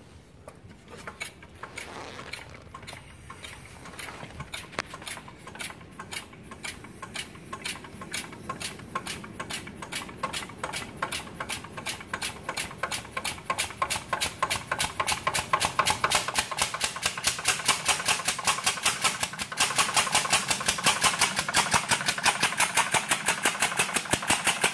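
Two-stroke weed eater engine converted to run on compressed air, running with a fast, even clacking and puffing: each beat is the slam valve being knocked open and letting a burst of air into the cylinder. The beats start slow and speed up steadily to several a second, getting louder, with a jump in level about twenty seconds in.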